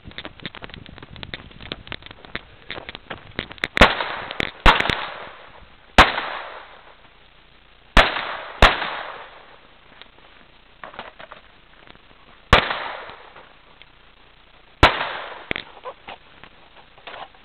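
Pistol shots, seven of them at uneven intervals starting about four seconds in, each sharp crack followed by a fading echo. Lighter clicks and knocks come between the shots.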